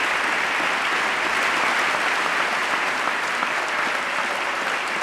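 Large audience applauding steadily, the clapping easing off slightly near the end.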